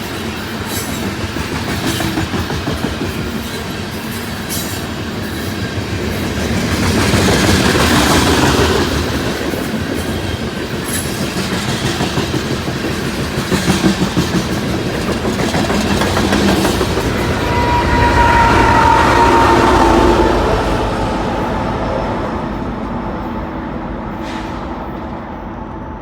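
Loaded coal hopper cars of a BNSF freight train rolling past, wheels clattering over the rails. The noise swells and eases, with a brief squeal about eighteen seconds in, then fades as the train moves off near the end.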